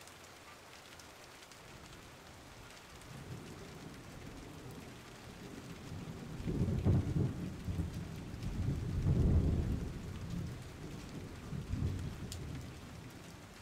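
Thunderstorm: steady rain with rolling thunder that builds from about three seconds in, rumbles loudest around the middle and rolls once more near the end.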